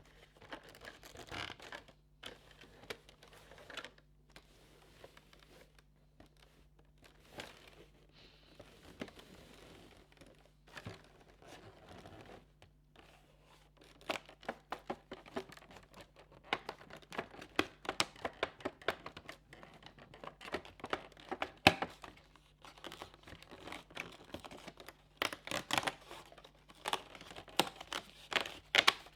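Advent calendar packaging being torn open and unwrapped by hand: tearing, crinkling and crackling of paper and plastic wrapping with sharp clicks. It is sparse at first and gets busier about halfway through.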